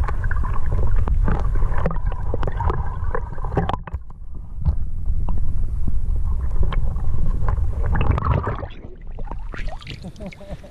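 Water sloshing and gurgling against an action camera held at and below the surface, a heavy low rumble with scattered knocks. From about four seconds in, the high sounds drop away for several seconds as it sits fully underwater, and the sound quietens near the end.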